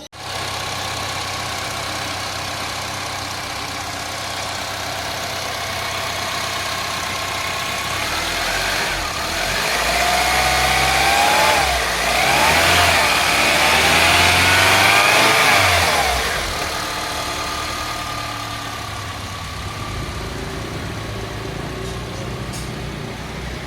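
Car engine idling, then revved in a series of rises and falls for several seconds in the middle before settling back to idle.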